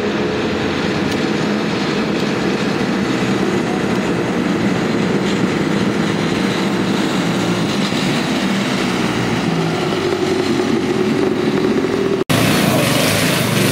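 Small engine of a mini car running steadily as the car drives along, its pitch drifting slowly up and down. About twelve seconds in it cuts off abruptly and gives way to a different, harsher engine sound.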